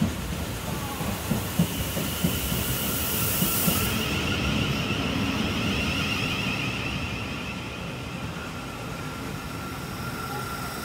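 Siemens Desiro City Class 707 electric multiple unit running into the platform and slowing to a stop. Its wheels click over the rail joints for the first few seconds, then a high electric whine sounds from the train as it slows.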